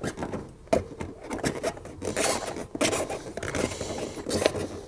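Hands tucking a Tannus Armour foam tire liner into a fat-bike tire and rim: irregular rubbing and scraping of foam and rubber against the rim, with a few short clicks.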